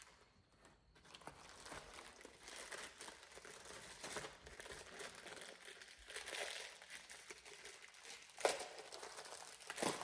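Packaging being opened by hand: wrapping paper or plastic crinkling and rustling, with one sharp, louder rip or crackle near the end.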